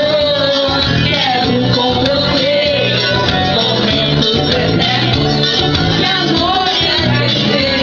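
A song: a voice singing a melody over a steady guitar-led backing.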